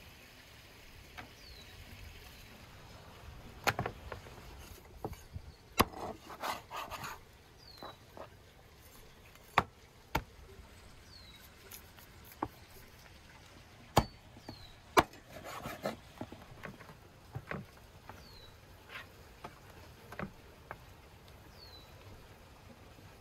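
A knife cutting lamb meat from the bone on a wooden board: sharp knocks of blade and meat on the wood, several of them, with stretches of rasping cutting. A small bird gives a short falling chirp every few seconds.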